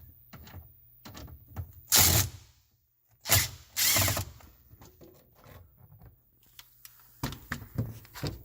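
A screw being backed out of the dehumidifier's filter access panel with a driver: three short loud bursts about two to four seconds in, among small clicks and handling knocks. A run of knocks and clicks follows near the end.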